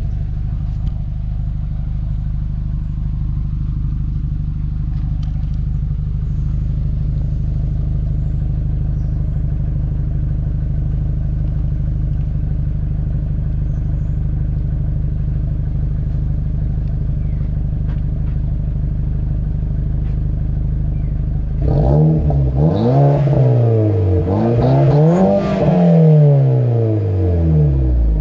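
VW Golf GTI Mk5's engine idling steadily, then revved several times near the end, the pitch rising and falling with each rev.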